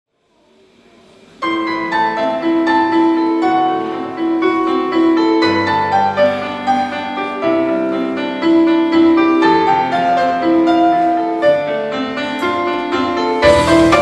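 Electronic keyboard playing a slow song intro of held chords under a sustained melody line. The full band with drums comes in right at the end.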